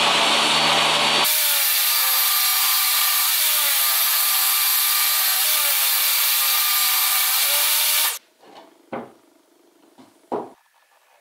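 Table saw ripping a pine board, the blade running steadily under load and cutting off abruptly after about eight seconds. Then two short wooden knocks.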